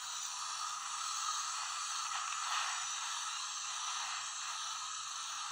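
Aerosol can of shaving cream spraying foam onto slime: a steady hiss, thin and lacking in bass as heard through a playback speaker.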